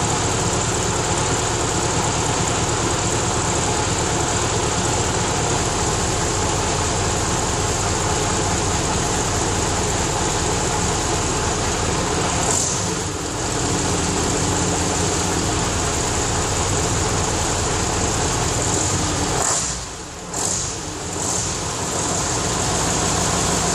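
Scania 141's V8 diesel engine idling steadily after being restarted from a long lay-up. The sound dips briefly twice, once about halfway through and once more deeply near the end.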